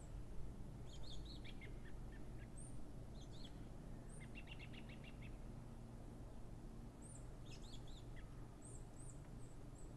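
Small songbirds singing in woodland: several short, high song phrases with notes stepping down in pitch, a quick trill of about ten notes around the middle, and thin high chirps near the end, over a faint steady low rumble.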